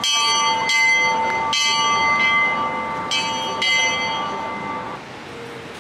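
Small bell hanging in a steel frame, struck five times at uneven intervals. Each stroke rings on and overlaps the next, and the ringing fades away about five seconds in.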